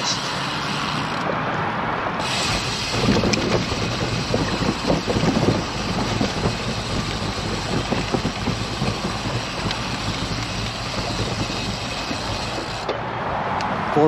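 Wind and road noise while riding a road bicycle, steady throughout, with a stretch of rapid ticking from about two to six seconds in.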